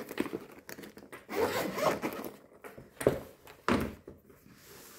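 Handling of zip-up diamond-painting storage cases of small plastic pots: a longer zip-like rasp about a second in, then two sharp knocks as a case is set down or bumped.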